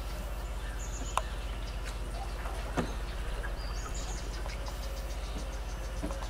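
Steady low hum with a fast even pulse, under scattered bird chirps and two sharp clicks, about one and three seconds in.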